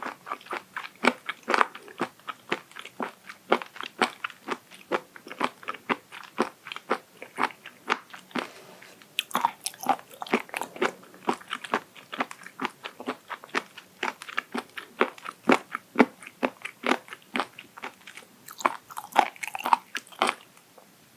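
Chewing raw abalone sashimi: a steady run of crisp crunches, about three a second, that stops near the end.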